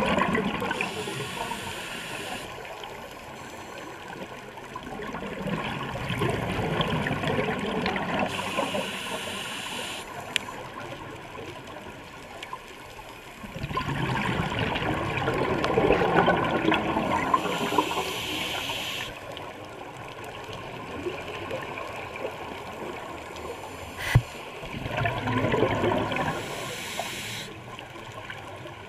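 Scuba regulator exhaust bubbles gurgling and rushing past the camera in long surges every several seconds, one for each exhalation of the diver, with a quieter hiss between breaths. A single sharp click about 24 seconds in.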